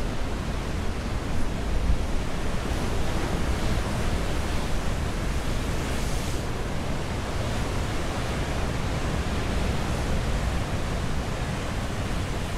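Wind buffeting the microphone over a steady wash of ocean surf, with a stronger gust about two seconds in.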